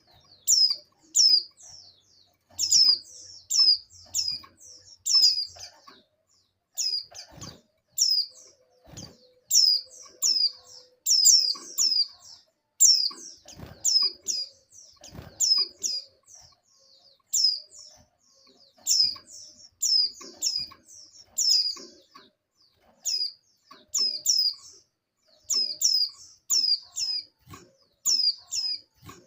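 Female white-eye (pleci) calling in breeding condition, the call used to draw males: a steady series of short, high chirps, each sliding quickly downward in pitch, often in pairs or triplets. A few soft low thumps break in here and there.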